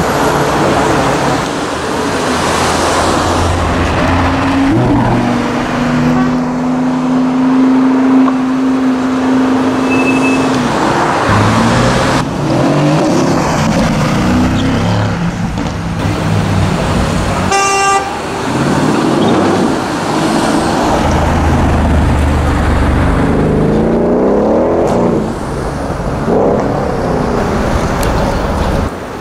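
Sports-car engines revving and accelerating past, their pitch climbing and falling over several passes. A short car-horn toot sounds a little past halfway.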